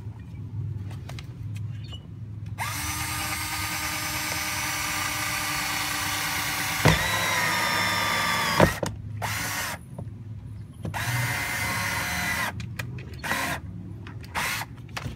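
Power drill with a hole saw bit boring a hole through a plastic car door panel. It runs in several pulls of the trigger: short blips, then a long steady whine whose pitch jumps up about seven seconds in, followed by a shorter run and a few brief blips near the end.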